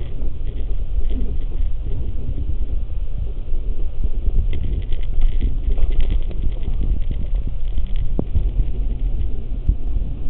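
Low rumble and crackle of handling noise on a camcorder's built-in microphone as the camera is moved about.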